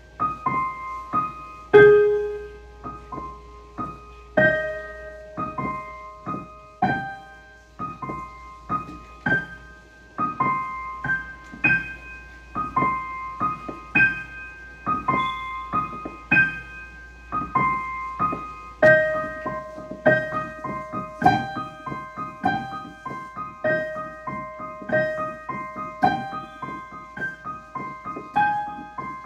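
Solo piano playing a simple melody over chords, notes struck about two a second and left to ring, with one louder low note about two seconds in.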